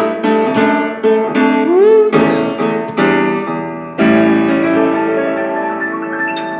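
Piano playing the closing bars of a slow blues: a few struck chords, then a final chord hit about four seconds in that rings on and slowly fades.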